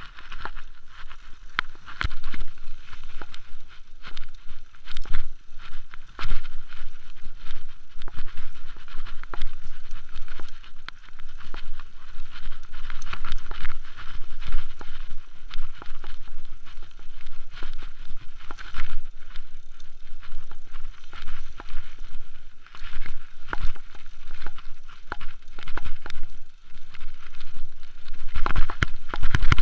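Mountain bike ridden downhill over rough grassy ground: tyres rumbling and the bike rattling, with frequent sharp knocks over bumps and wind noise on the microphone. It gets louder near the end.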